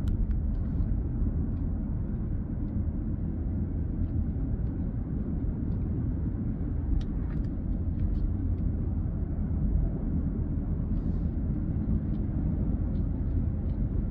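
Steady low rumble of road and engine noise inside a moving car's cabin, with a few faint clicks scattered through it.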